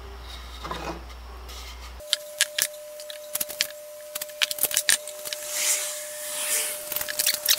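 Wooden workpieces being handled on a workbench, with a string of sharp clicks and knocks and two brief scraping swells over a faint steady tone.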